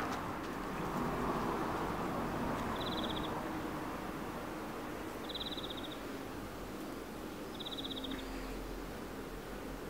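A short, high trill, about half a second long, repeats three times at even gaps of about two and a half seconds, like a small animal's call. It sits over a steady background hiss.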